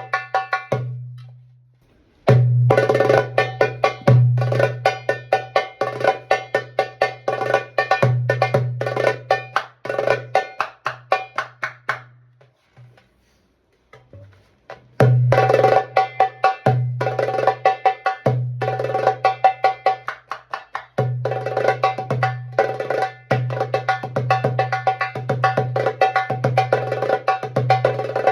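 Star Percussion Egyptian-style darbuka (goblet drum) played in fast rhythmic patterns: deep ringing doum bass strokes mixed with quick, sharp tek and ka strokes near the rim. The playing stops briefly about a second in, and again for about three seconds around the middle, then picks up once more.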